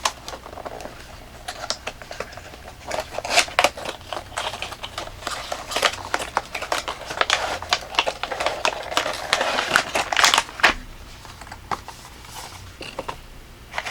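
A flashlight's product box being opened and its packaging handled: a busy run of scrapes, clicks and rustles of the box and its plastic insert, densest from about three to eleven seconds in.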